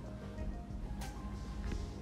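Soft background music.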